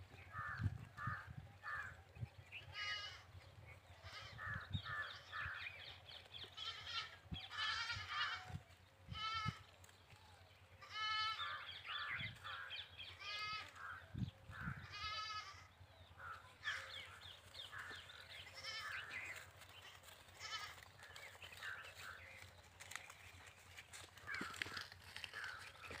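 Flock of goats and sheep bleating: a long string of quavering calls, some drawn out and some short, following one another every second or so, with a few dull low thumps among them.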